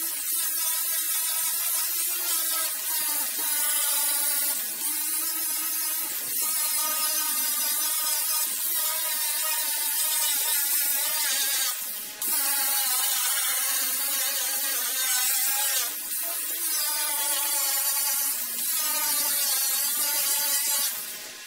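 Handheld grinder with a high-speed sanding wheel grinding down fiberglass on a boat hull: a steady high motor whine over a harsh grinding hiss, broken off sharply a few times.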